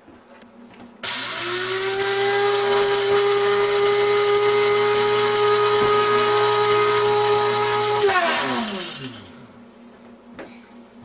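Electric blade spice grinder grinding cardamom seeds: the motor starts suddenly about a second in and runs at one steady whirring pitch with a hiss of the seeds being pulverised, then is switched off about eight seconds in and winds down with falling pitch.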